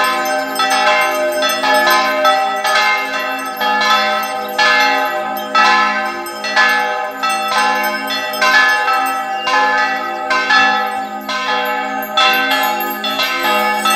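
Church bells ringing together, a new strike about every second, the tones of several bells overlapping and hanging on over a steady low hum.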